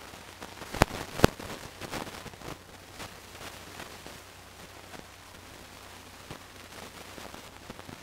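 Two sharp clicks close together about a second in, then faint scattered ticks over a steady background hiss.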